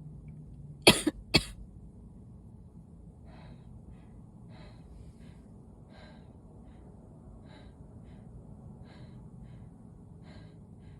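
A person coughs sharply twice, about half a second apart, about a second in. Faint, wheezy breaths follow at a steady pace as she recovers from a sneezing fit.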